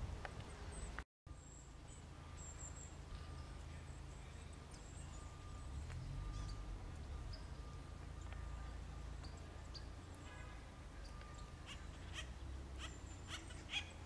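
Faint outdoor ambience with a steady low wind rumble. Near the end comes a handful of sharp taps: an acorn woodpecker pecking at tree bark.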